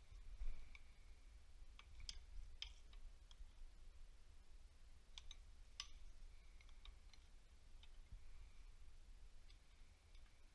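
Faint, scattered metallic clicks and ticks of a hand wrench working the mounting bolts of a diesel injection pump, over a low rumble.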